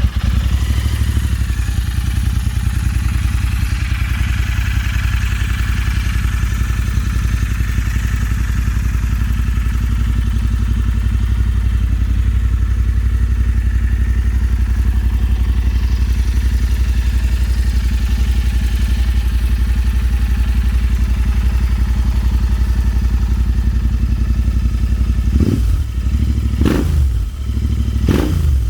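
Royal Enfield Interceptor 650's 648 cc parallel-twin engine, fitted with full stainless steel Verex Tasmania headers and Powerage exhausts, idling steadily just after starting, then revved in three short throttle blips near the end.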